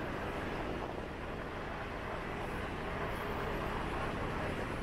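Steady city-street ambience made up mainly of road traffic running past.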